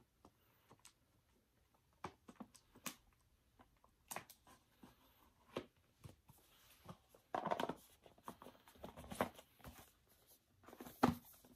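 Quiet handling noise from a Blu-ray case and its packaging: scattered light clicks and short rustles, busiest about seven and a half seconds in and near the end.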